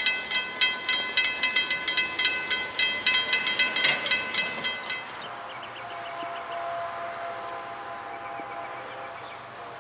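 Railroad crossing bell ringing in rapid, even strokes while the gate arms rise, stopping abruptly about five seconds in. A pickup truck then drives across the tracks.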